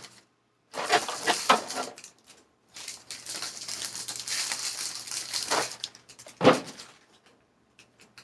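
Plastic packaging crinkling and rustling as a toy is unwrapped from its box, starting with a second of short handling clicks. A single sharp knock about six and a half seconds in.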